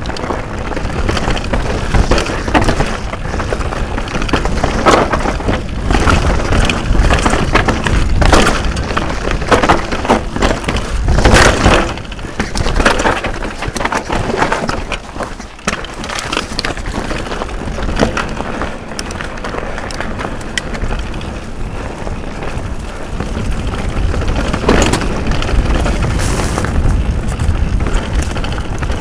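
Propain Rage Carbon downhill mountain bike ridden fast over a rocky trail: tyres crunching and skidding over stones and dirt, with frequent sharp knocks and clatter from the bike, all under wind rushing over a helmet-mounted camera. It is rough and loud for the first dozen seconds, calmer through the middle, and picks up again near the end.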